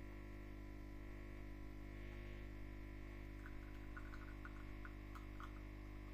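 Ambiano coffee capsule machine brewing a small cup: its pump gives a faint, steady hum, with a run of small ticks about halfway through.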